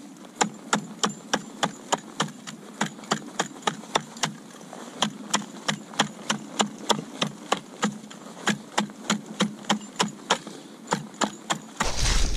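Steel ice chisel chipping a hole through lake ice: steady, sharp strikes about two or three a second. Near the end a louder rushing noise suddenly takes over.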